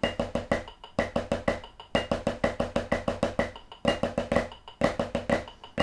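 Snare drum played with sticks in a steady run of Swiss Army triplets, a flam-based triplet rudiment, at quarter note = 125. A metronome-like click keeps the beat about twice a second.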